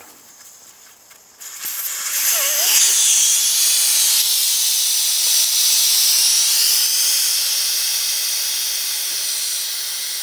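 Air hissing out of a motorcycle tire through its valve stem with the core removed, deflating the tire before the bead is broken. The loud hiss starts suddenly about a second and a half in and slowly fades.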